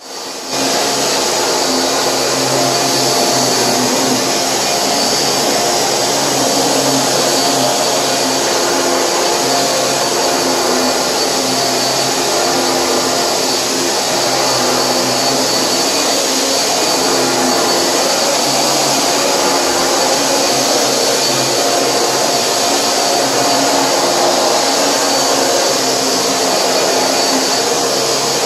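A 1997 Hoover Dimension Supreme vacuum cleaner running steadily, a loud motor whine over a rush of air, coming up to full level within the first second.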